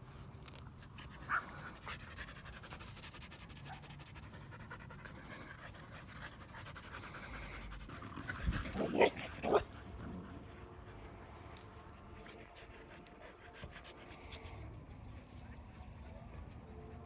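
Dogs panting, with a brief cluster of three short, loud dog vocalizations about nine seconds in.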